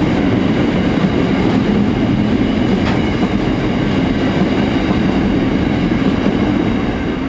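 Empty coal train wagons rolling along curved track: a steady rumble with faint steady high tones, one click about three seconds in, and the level easing slightly near the end.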